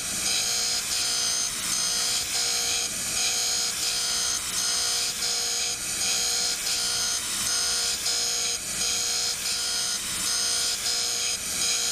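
Surface grinder grinding a hardened steel square: the spinning wheel whines steadily, with its tones cutting in and out in a quick regular rhythm as it plunges into the corner.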